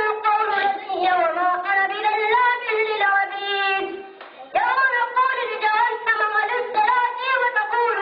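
A single high voice singing in long, drawn-out melodic phrases, with a brief break about four seconds in before a new phrase begins.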